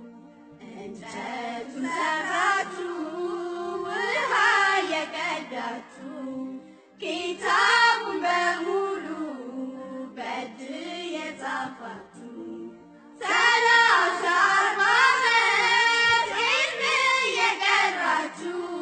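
Devotional song: a high voice sings a melody in long phrases over a steady low held tone, with short pauses between phrases.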